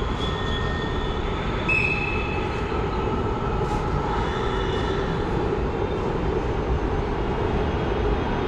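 Steady rumble and hum of an elevated metro station, with faint steady whining tones above it and a brief higher tone about two seconds in.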